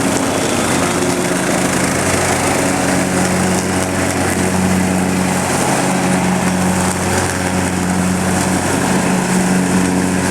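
Lawn mower engine running steadily at working speed, its all-weather blade mulching leaves into powder, a constant engine note under a dense hiss of shredding.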